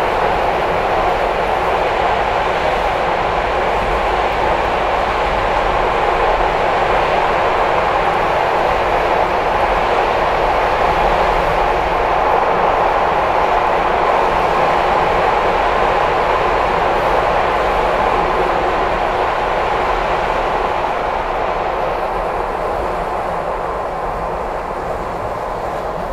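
SEPTA Broad Street Line subway car running at speed through a tunnel, heard from inside at the door: a steady, loud rumble of wheels on rail and traction motors that eases a little near the end.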